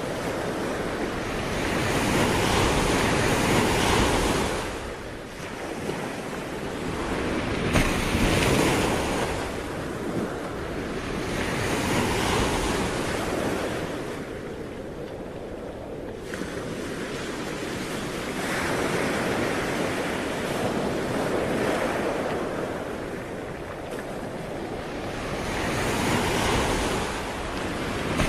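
Sea waves breaking and washing on the shore in slow surges, one every few seconds, with some wind on the microphone.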